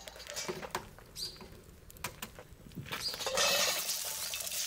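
Hot oil in an iron wok over a wood fire, with light crackles and pops and a clink of the iron ladle. About three seconds in, a steady sizzle of frying starts and keeps going.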